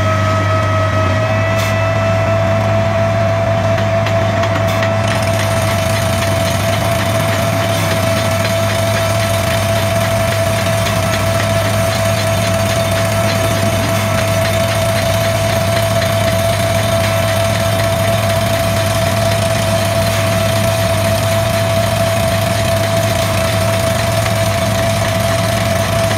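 Crawler-mounted down-the-hole (DTH) drilling rig drilling into rock, a steady, loud mechanical noise with a constant high whine that holds throughout. About five seconds in, the hiss over the top grows fuller.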